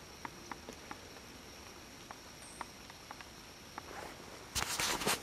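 Light raindrops falling on leaves, making scattered single light ticks over a faint steady background, then a brief rustling noise about four and a half seconds in.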